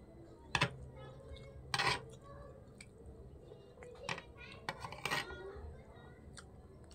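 Metal spoon scraping and clinking against a plate while scooping rice, with several sharp clinks: the loudest about half a second in and near two seconds, more around four to five seconds in.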